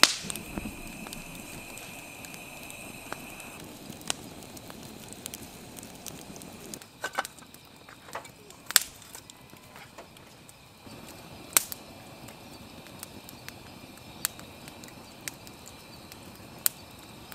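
Campfire crackling, with irregular sharp snaps and pops over a soft background hiss. The loudest snap comes right at the start. A thin, steady high tone runs for the first few seconds and then stops.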